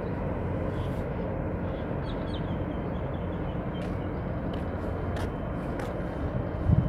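Steady low rumble, with a few faint bird chirps about two seconds in and a brief low thump near the end.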